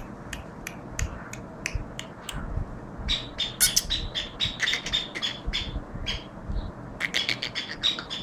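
A caged black francolin calling. It starts with short sharp clicks about twice a second, then from about three seconds in gives a dense run of rapid repeated notes, and near the end a second quick series.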